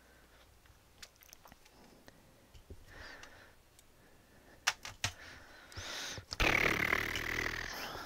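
Light clicks and taps of a soldering iron, wires and small parts being handled at a workbench while wires are soldered onto a drone's flight controller. Two sharper clicks come a little past halfway, then a louder rushing noise lasts about a second and a half near the end.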